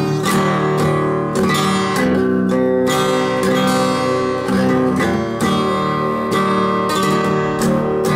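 Acoustic guitar strummed in a steady rhythm, about two strums a second, chords ringing on between them.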